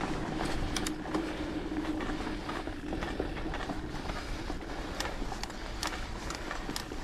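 Mountain bike riding on a trail: a steady rush of tyre and wind noise with many small clicks and rattles from the bike.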